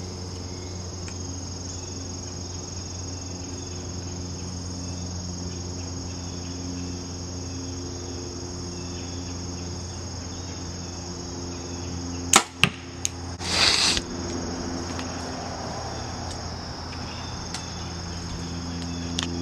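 Compound bow shot: a sharp snap as the string is released about two-thirds of the way in, a smaller click just after, and about a second later a short noisy burst. Insects chirr steadily in the background.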